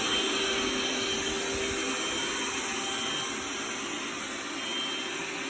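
Xiaomi Mijia 3C robot vacuum running: its suction fan gives a steady whir with a constant hum and a faint high whine.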